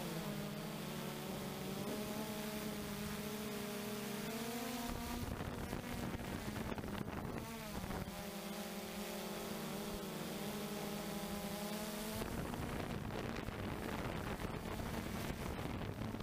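Blade 350 QX3 quadcopter's brushless motors and propellers buzzing, heard from the onboard GoPro: a steady droning hum whose pitch wavers as the motors adjust, dipping and recovering briefly midway. Rushing air noise joins in during two stretches, one before the middle and one near the end.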